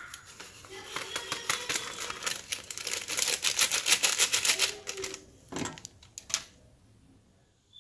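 Plastic spice packet crinkling and rustling in rapid clicks as dabeli masala is shaken out of it onto mashed potatoes, then two short knocks near the end.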